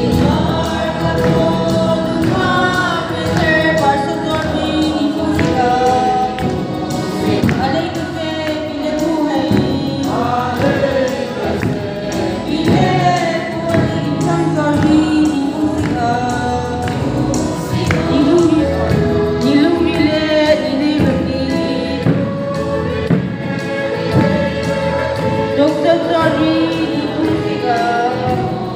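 A group of young people singing a Christmas song together in chorus, continuously and at a steady volume.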